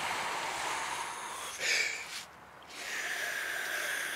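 Heavy breathing close to the microphone from a man with COPD: two long rushing breaths, with a short sharp breath between them about halfway through.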